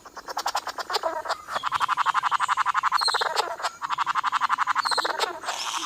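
Male bowerbird giving a rapid, buzzy rattling call of about ten pulses a second as part of his courtship display, in long runs broken by brief pauses.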